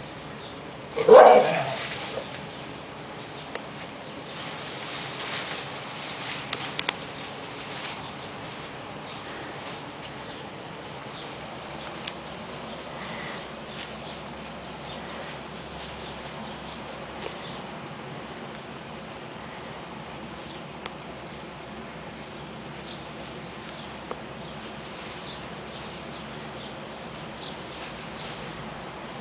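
A dog barks about a second in, one loud call with a pitched, ringing tone. Faint rustling and a steady high hiss follow.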